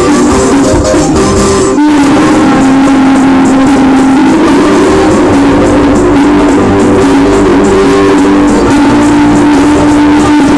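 Live dance band playing loud amplified music, with a short break in the sound about two seconds in.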